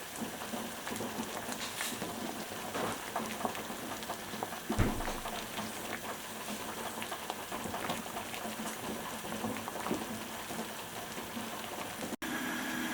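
Pot of ginger, pear and jujube tea boiling, an even bubbling crackle of many small pops, with one low thump about five seconds in.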